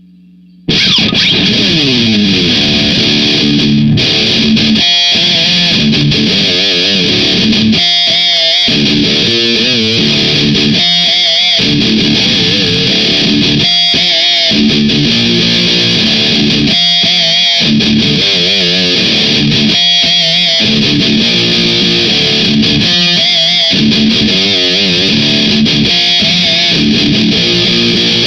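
Electric guitar with heavy distortion playing a metal riff through an amp head and speaker cabinet. It comes in suddenly about a second in and breaks off briefly every few seconds between phrases.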